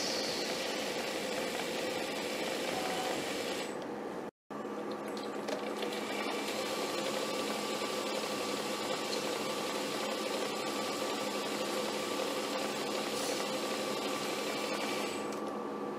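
Metal lathe running and cutting a small piston blank with an insert tool: a steady machine whir with a constant hum. The sound drops out for a moment about four seconds in, then carries on the same.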